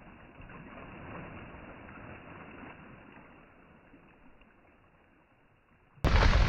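Lake water gushing up through a freshly drilled ice-fishing hole and sloshing around the ice auger, muffled and fading away over several seconds. About six seconds in it cuts to loud wind buffeting the microphone.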